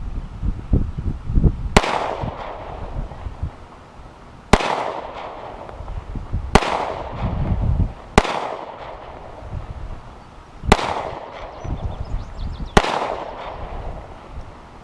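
Six 9mm pistol shots from a Glock 43, fired one at a time about two seconds apart, each a sharp crack with a short echo trailing after it.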